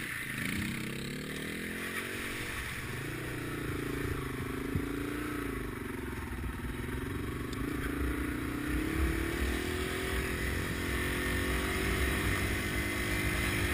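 Dual-sport motorcycle engine running under way on a dirt trail, its pitch rising and falling as the throttle opens and closes, then holding steadier about ten seconds in. Under it is a low wind and road rumble.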